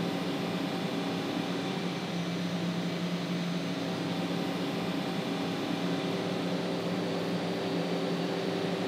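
Steady machine-shop hum: an even mechanical drone with a few held tones, with no cutting or other events in it.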